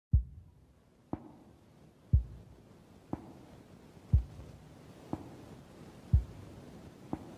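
A slow, heartbeat-like pulse: a deep thump about every two seconds, with a lighter, sharper tick halfway between each, over a faint low hum.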